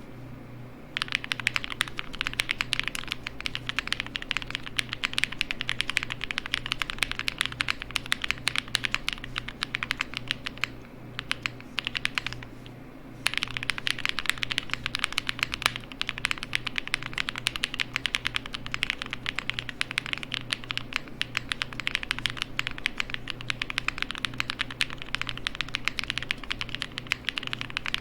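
Fast, continuous typing on a plateless Glacier80 custom mechanical keyboard with lubed, long-pole-stemmed Gateron Ink switches and GMK keycaps. The typing starts about a second in, stops briefly near the middle apart from a short flurry, then resumes.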